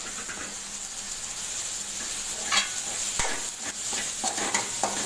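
Onion, tomato and ginger-garlic paste sizzling in oil in a metal kadai while a metal spoon stirs it, with a few sharp scrapes and clinks of the spoon against the pan in the second half.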